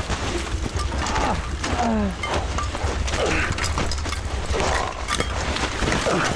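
Footsteps crunching through deep snow in a strong wind, with the wind rumbling on the microphone and a few short, falling, strained breaths or grunts of effort.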